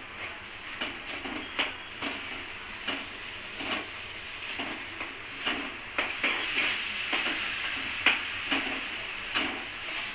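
Metal spatula scraping and knocking against a steel kadhai, stirring grated coconut into melted jaggery for modak filling, in repeated strokes about every half second. A soft sizzle from the hot mixture runs underneath and grows a little stronger after the middle.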